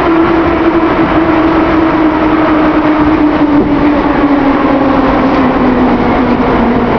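Old metro car rolling into a station and slowing: a loud steady rumble with a whine that falls slowly in pitch as the train loses speed.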